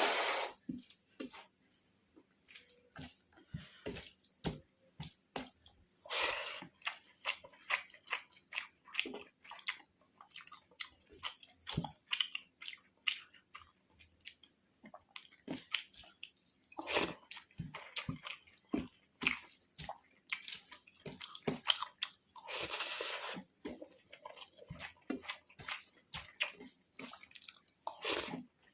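Close-miked eating of rice and curries: chewing and wet mouth smacks in a rapid run of short clicks, with a few longer scraping, squishy noises along the way.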